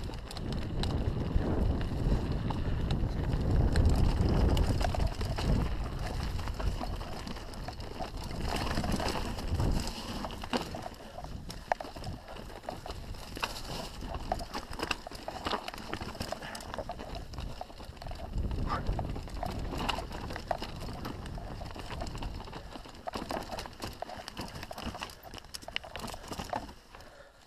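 Canyon Strive enduro mountain bike riding down a rocky singletrack. Tyres roll over dirt and stones, with frequent clacks and rattles as the bike hits rocks, over wind rumble on the body-mounted camera's microphone. The rumble is loudest in the first few seconds and eases toward the end.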